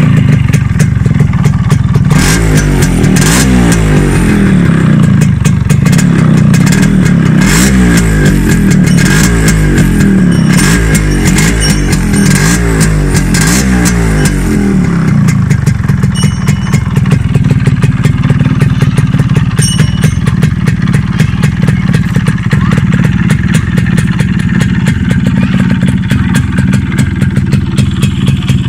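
A 20-year-old Yamaha RX135's single-cylinder two-stroke engine running while stationary, revved up and down repeatedly with throttle blips for about the first half, then settling into a steady idle.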